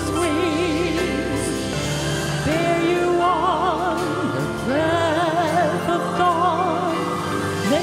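A woman singing solo into a microphone, holding long notes with wide vibrato, accompanied by piano.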